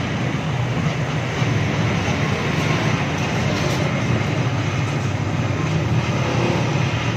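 Electric arc welding on a steel exhaust pipe: a steady sizzling hiss from the arc over a low hum.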